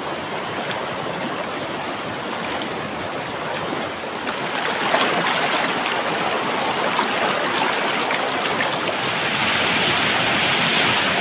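Fast shallow mountain river rushing over rocks in rapids: a dense, steady roar of water, with splashing as people wade through the current. The rushing grows louder a few seconds in.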